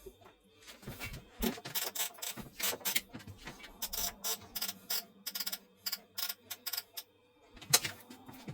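Irregular rapid clicks, taps and clatter of kitchen handling as chicken is prepared, with a louder knock near the end.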